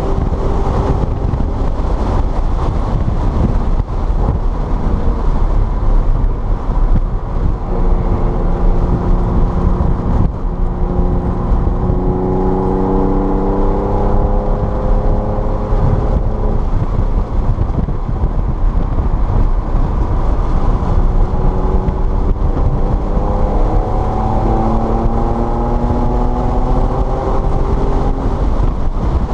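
Car engine under hard acceleration during a lap, its pitch rising steadily through each gear and dropping back at shifts and lifts, over a constant rush of tyre, road and wind noise.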